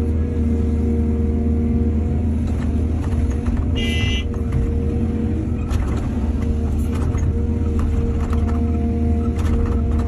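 Heavy diesel earthmoving machinery running at a steady load, a deep engine drone with a constant hum. About four seconds in comes a brief high-pitched metallic squeal, with a few faint knocks scattered through.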